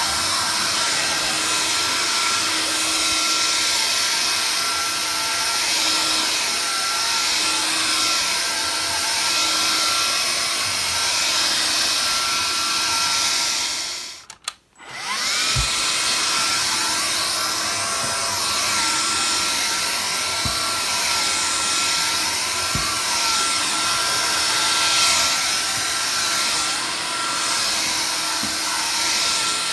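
Vax Air Cordless Lift cordless upright vacuum cleaner running with a steady whine. About halfway it cuts out briefly, then spins back up with a rising whine, and a few light knocks follow.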